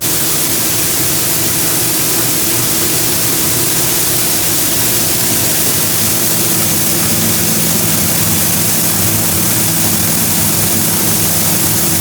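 A machine running steadily at full speed: a loud, even rushing noise over a constant low hum, starting suddenly.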